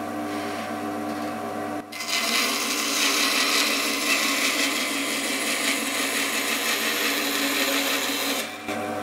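JIB BAS 312 bandsaw motor running with a steady, fairly quiet hum. About two seconds in the blade starts cutting through a wooden board, a loud steady sawing that stops shortly before the end as the cut finishes.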